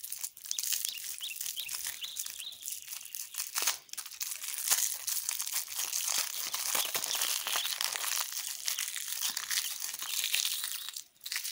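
Plastic lollipop wrapper being twisted and peeled off by hand: a dense, continuous crinkling and crackling that breaks off sharply near the end.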